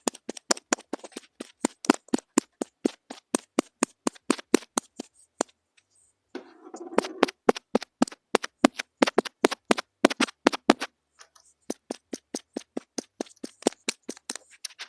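Rapid tapping on a small object held close to a mini microphone, about five sharp taps a second, stopping twice briefly, with a short rustle of handling about halfway through.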